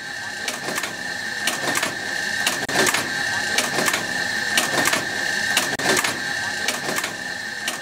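A motor-driven machine running with a steady high whine and irregular clacks about twice a second.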